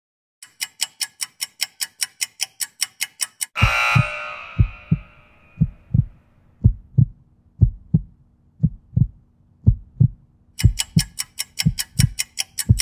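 Interval-timer sound effects: rapid electronic beeping, about four to five beeps a second, counting down the last seconds of the work interval, cut off about three and a half seconds in by a loud ringing burst that fades over about two seconds and marks the start of the rest. Through the rest comes a heartbeat effect, low double thumps about once a second over a faint hum, and near the end the rapid beeping returns as a warning that the next work interval is about to start.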